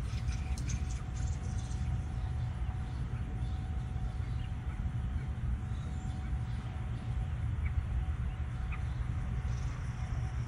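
Steady low outdoor rumble, with a few light splashes near the start as an American robin bathes in a birdbath, and two faint short bird chirps later on.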